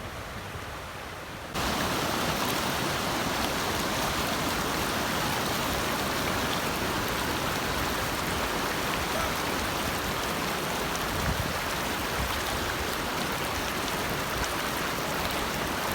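Steady rushing of water, a dense even hiss that comes in suddenly about one and a half seconds in, after a quieter low rumble.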